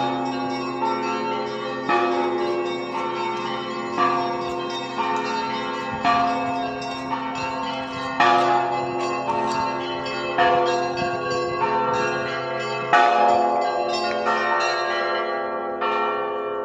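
Several church bells ringing, struck about once a second and left to ring on so their tones overlap. The deepest tone drops out about three-quarters of the way through, and after the last strike near the end the bells die away.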